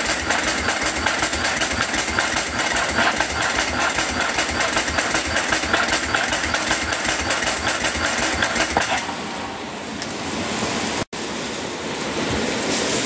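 Electric starter cranking a Ducati 749S's L-twin engine in a rapid, even chatter for about nine seconds without it catching, then stopping. The fuel pump is disconnected to clear an engine the owner believes is flooded.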